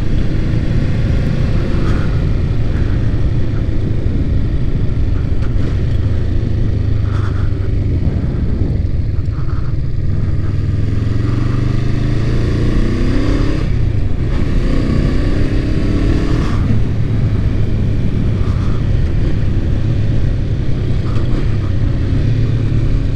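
Kawasaki Vulcan 500's parallel-twin engine heard while riding, faint under steady wind noise on the microphone. About ten seconds in, the engine climbs in pitch as the bike accelerates, drops briefly at a gear change, and climbs again before settling back to a steady cruise.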